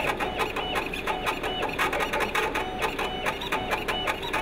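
Laser cutter's gantry motors whirring in quick start-stop pulses, several a second, with a whine as the cutting head traces straight lines and turns corners.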